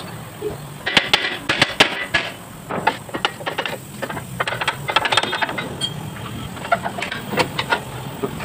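Hand tools clinking and knocking on metal car parts: irregular sharp clicks and clanks, a few with short ringing notes.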